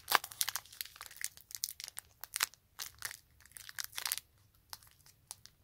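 Foil Pokémon booster-pack wrapper crinkling and crackling in the hands as fingers work at its sealed top, struggling to tear it open. Irregular sharp crinkles, thinning out about four seconds in.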